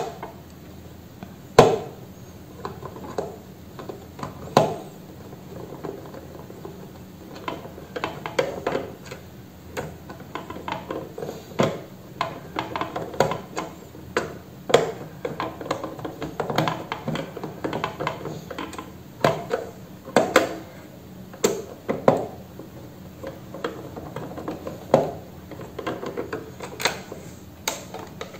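Screwdriver turning out the screws from a plastic blender base, with irregular clicks, scrapes and knocks as the plastic housing is handled and shifted.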